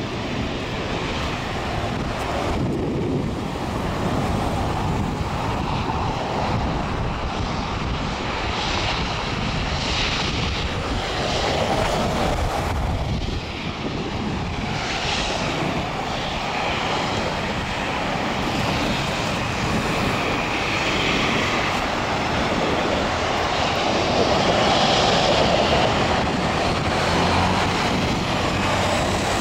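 Outdoor road traffic: a steady rumble that swells and eases several times as vehicles pass through the intersection.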